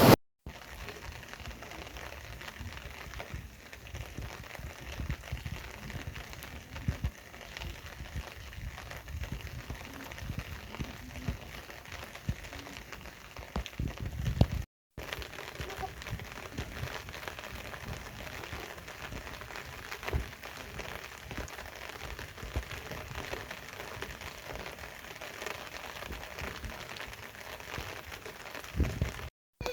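Steady light rain hissing, with scattered low thumps on the microphone. The sound cuts out briefly about halfway through and again near the end.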